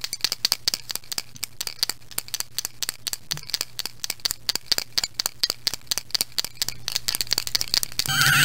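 Paint marker being shaken, its mixing ball rattling in fast, sharp clicks about six times a second, over a faint low hum. Near the end a raygun's warbling electronic tone starts.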